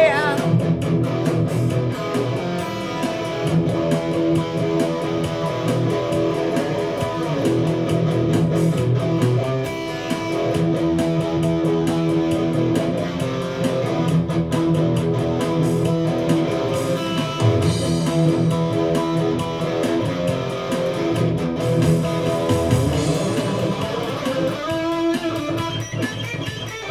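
PRS SE Standard electric guitar played through an amp, a continuous instrumental passage of a rock song over a BeatBuddy drum-machine beat.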